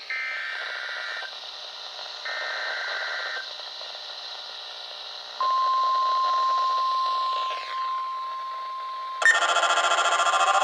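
NOAA Weather Radio broadcast heard through a Midland HH54VP2 receiver's speaker over reception hiss. First come two short bursts of the SAME digital header's buzzy data tones. About five seconds in, the steady 1050 Hz warning alarm tone starts. Near the end the receiver's own louder, rapidly pulsing alert sound begins, showing it has decoded the weekly test.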